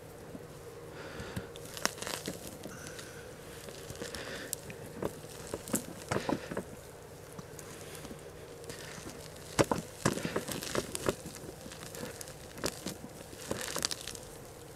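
Hands sifting and raking through loose potting soil in a wheelbarrow, an irregular crumbling rustle with scattered small crackles, the loudest cluster of them about ten seconds in.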